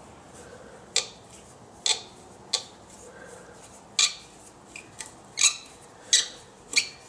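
Screwdriver turning a hose clamp on a tractor's hydraulic hose: about seven sharp metallic clicks at irregular intervals, with a few fainter ones among them.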